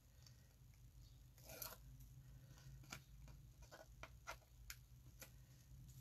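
Faint handling of paper card: soft rustles and small scattered clicks and taps, over a low steady room hum.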